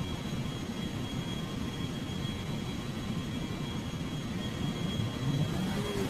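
Steady jet-like rumble and hiss with faint, steady high whining tones above it; a wavering pitched sound begins near the end.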